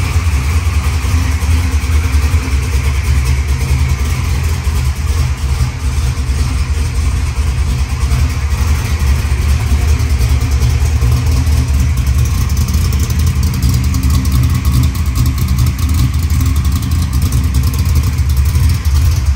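1969 Chevrolet Camaro's naturally aspirated big-block V8 idling steadily and loudly while it warms up, just after its transmission has been refitted.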